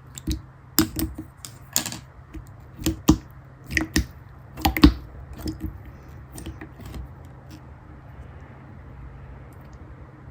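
Blue pearl slime being squeezed and pressed by hand, giving sharp clicking pops and small squelches that come thick and fast for about six seconds, then thin out to a few faint ticks.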